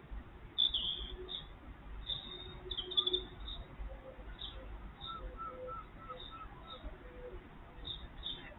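Small birds chirping, with scattered short high chirps and, about five seconds in, a run of quick repeated notes, over a steady low background rumble.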